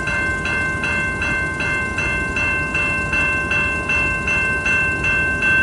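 Railroad grade-crossing warning bell ringing steadily at about three strokes a second, over the low rumble of a stopped freight train.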